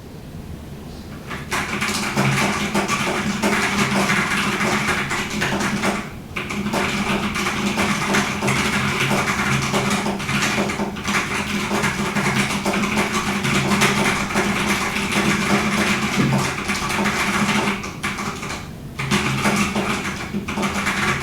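Fast typing on a UT47.2 40% mechanical keyboard with Drop Halo True tactile switches: a dense, continuous clatter of keystrokes that starts about a second and a half in, with brief pauses about 6 s in and again around 18 s.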